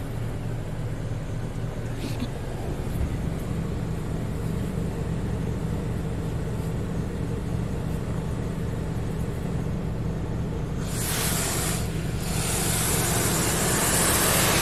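Monorail in-bay automatic car wash heard from inside the car: a steady low machine hum, then about eleven seconds in a loud hiss of water spray hitting the car, with a brief break about a second later.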